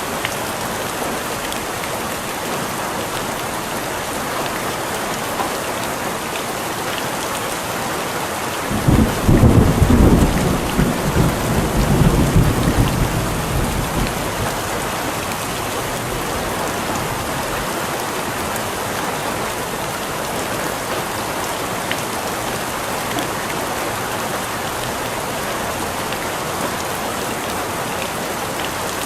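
Steady rain falling, with a rumble of thunder about nine seconds in that rolls on for about five seconds and then fades.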